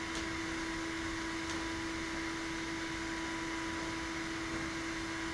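Steady machine hum with a constant low tone and a fainter higher whine, with a couple of faint ticks.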